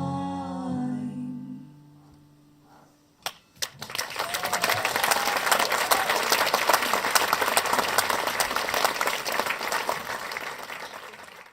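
The final sung note and strummed acoustic guitar chord of a song ring out and fade away. After a short, almost quiet pause, a few scattered claps grow into a small audience's applause, which thins out near the end.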